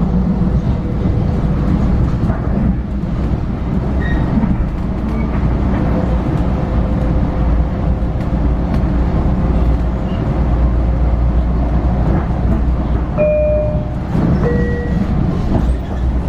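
Long Island Rail Road commuter train running, heard from inside the passenger car: a steady rumble of the ride. A couple of brief higher squeaks come near the end.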